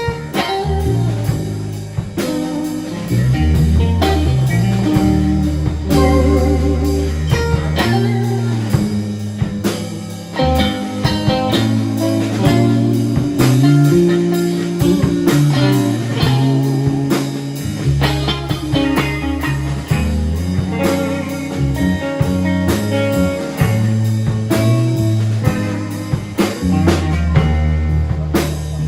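Live blues-rock trio playing an instrumental passage: electric guitar lines over bass guitar and a drum kit.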